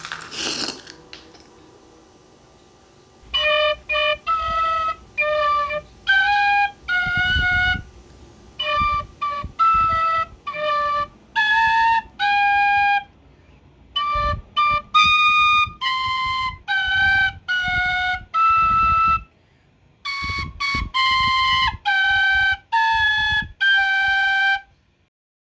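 Solo flute-like woodwind playing a melody of short, separate notes in four phrases, stopping near the end.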